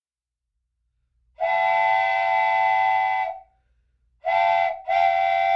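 Steam whistle blowing: one long blast, then a short blast and a third blast that is still sounding at the end.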